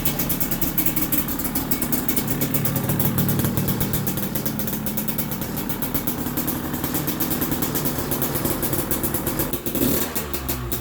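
Two-stroke engine of a KTM 300 XC TPI dirt bike running, its rapid exhaust pulses steady with small changes in pitch; the sound changes abruptly near the end.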